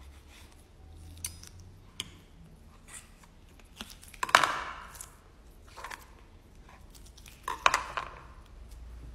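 Table knife cutting pieces of cooked morel mushroom on a plate, with a fork steadying them. A few light clicks of metal on the plate, then two louder, longer cuts, one about four seconds in and one near the end.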